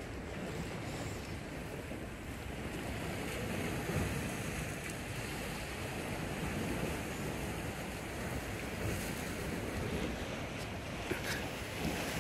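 Steady wash of sea surf on a rocky shore, with wind buffeting the microphone. A couple of faint clicks near the end.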